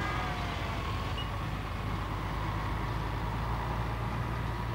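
Steady low rumble of city traffic with a background hiss.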